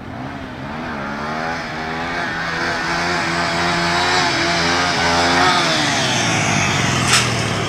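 Honda AX-1's single-cylinder four-stroke engine revving hard as the motorcycle accelerates up through the gears, its pitch rising and dropping back several times and growing louder as it comes close. A short sharp click near the end.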